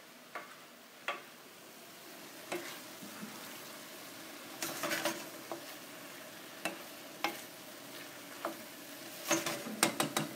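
Wooden spoon stirring sautéed vegetables in a stainless steel skillet over a faint steady sizzle. The spoon knocks against the pan now and then, with a quick run of knocks about five seconds in and more of them near the end.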